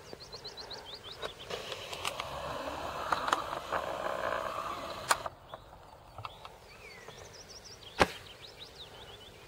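Birds singing in short falling chirps, with one sharp shot from a Silverback SRS spring-powered bolt-action airsoft sniper rifle about eight seconds in.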